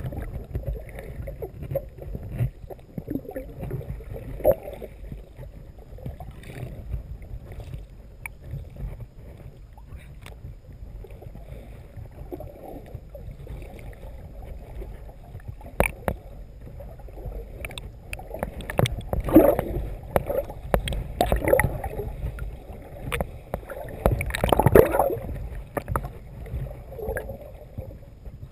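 Muffled sloshing and gurgling of water picked up by a camera held just under the surface, with a steady low rumble. There is a sharp knock at the very start and louder surges of sloshing about two-thirds of the way in.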